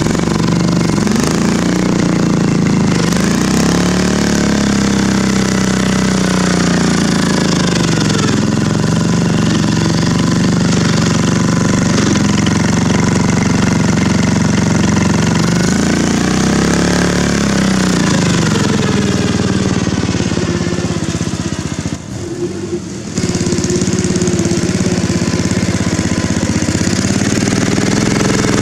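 Lifted Craftsman LT1000 riding mower's engine running loud under load in sand, its pitch sagging and rising several times as the load and throttle change. Near the end it briefly drops off, then picks back up.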